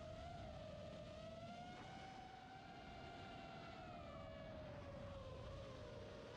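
Brushless motors of a 5-inch FPV quadcopter (F40 1950 kv) whining with throttle, the pitch rising about a second in, holding, then falling and dipping near the end, over wind hiss.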